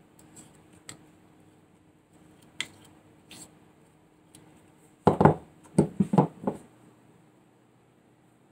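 A knife scraping and clicking as peanut butter is packed into a hollow bone chew, then a quick run of about six hard knocks about five seconds in.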